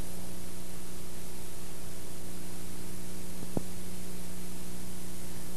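Steady hiss of static with a low electrical hum from the soundtrack of a 1996 videotape recording, with no other sound over it; a single faint click comes about three and a half seconds in.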